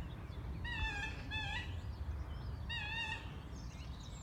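Short, wavering, pitched calls from an unidentified creature on the water, which the listener takes for a bird: three calls, two close together about a second in and another near three seconds. Under them is a low steady rumble.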